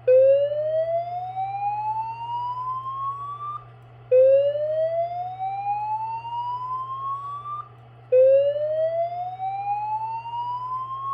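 System Sensor SPSR fire alarm speaker strobe sounding the slow whoop evacuation tone. Three rising whoops, each climbing for about three and a half seconds and starting again every four seconds, form the alert signal that precedes the voice evacuation message. A steady low hum runs underneath.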